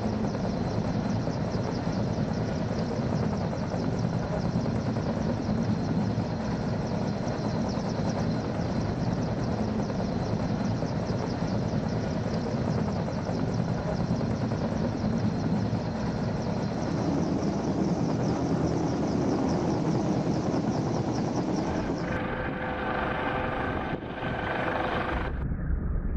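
US Coast Guard helicopter hovering overhead during a hoist rescue: steady, loud rotor and turbine noise. Near the end the sound shifts and a steady whine joins in for a few seconds.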